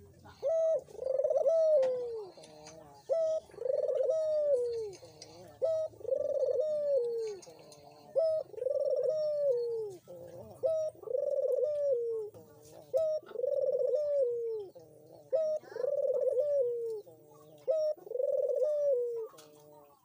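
Ringneck dove (burung puter) cooing: eight evenly spaced two-part coos, each a short note followed by a longer rolling coo that drops in pitch at the end.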